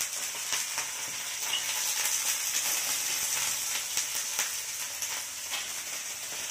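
Raw desi chickpeas frying in hot oil in a wok with onion, garlic and ginger: a steady sizzle with scattered small ticks.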